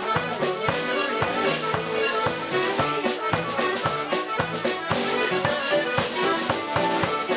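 Accordion playing an Irish traditional tune, with a snare drum played with sticks keeping a steady beat under it.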